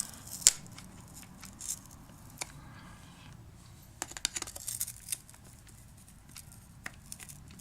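Pliers gripping and bending the thin aluminium rim of a cracked lens filter that is jammed cross-threaded on the lens: scattered sharp metal clicks and scrapes, the loudest about half a second in and a cluster from about four to five seconds in.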